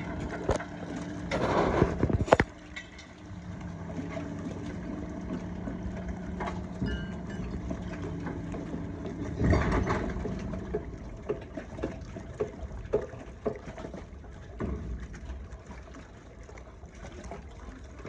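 Steady low hum of a workboat engine running, with water sounds and scattered knocks. Louder noisy bursts come about two seconds in and again about ten seconds in.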